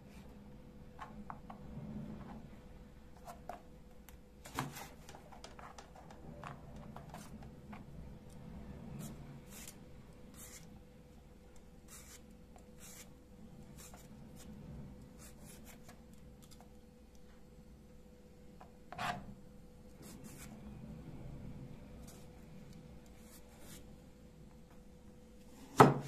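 Kitchen knife slicing vegetables and clicking against a plastic cutting board, with a vegetable peeler scraping the skin off an eggplant. Two sharper knocks of the blade on the board, the loudest near the end. A steady faint hum underneath.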